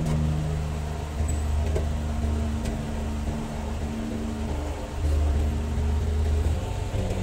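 Flatbed tow truck's engine idling with a steady low hum that gets louder about a second in and again about five seconds in.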